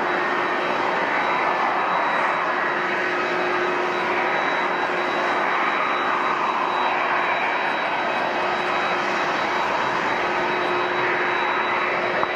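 Jet airliner's turbofan engines running steadily: a broad rush of noise with a steady high-pitched whine and a lower steady hum.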